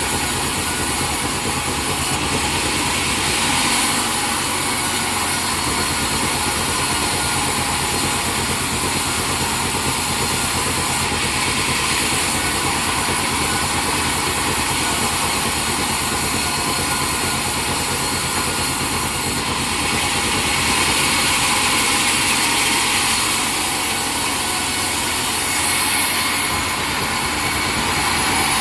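Sawmill machinery running steadily and loudly, with a strong high-pitched hiss whose brightness shifts a few times.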